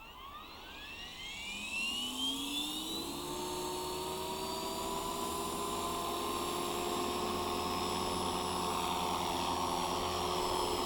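Electric motor and rotors of an RC scale Hughes MD 500E helicopter (Align T-Rex 450 mechanics) spooling up. The whine rises in pitch over about three seconds, then holds at a steady headspeed.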